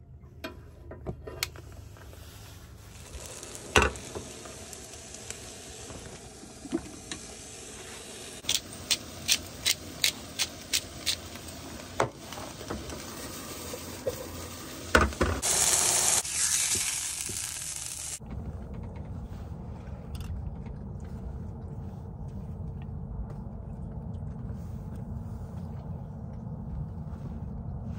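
Galley cooking: a quick run of a dozen or so sharp knocks, then a few seconds of loud sizzling as food hits a hot frying pan. After that a steady low rumble.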